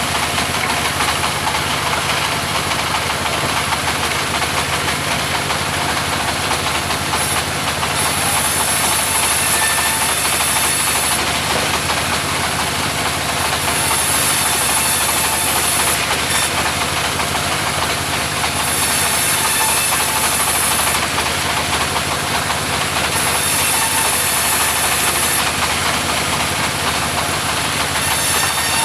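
Mobile sawmill running steadily, its engine and saw blade sawing timber. A high hiss rises for a few seconds at a time, several times over.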